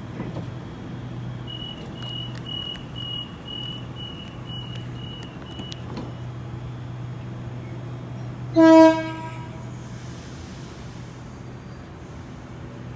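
A Sydney Waratah electric train's horn gives one short, loud blast about two-thirds of the way in, over the train's steady low hum. Earlier, a run of short high beeps sounds for about four seconds.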